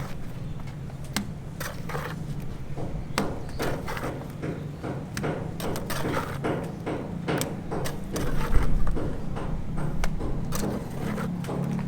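Irregular knocks and clatter of building work, several a second at times, over a steady low hum, with a heavier low thump about eight and a half seconds in.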